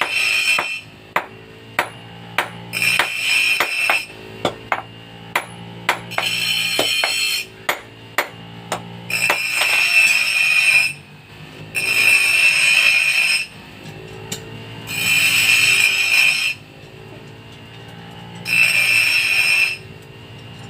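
Hammer blows ringing on steel at an anvil, about two a second for the first few seconds. Then long rasping strokes on the metal, each lasting a second or more with a pause between them, as a file works the forged piece.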